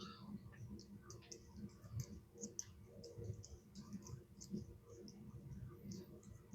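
Faint, irregular light clicks of small metal parts of a Vibroplex telegraph key being handled and turned during disassembly.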